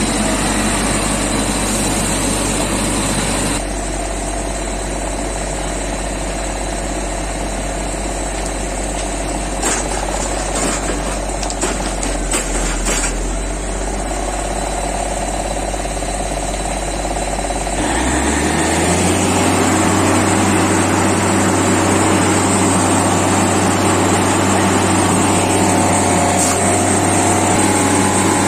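Diesel engine of a railway track tamping machine running steadily, then speeding up about two-thirds of the way through and holding at the higher speed. A few faint clicks come in the middle.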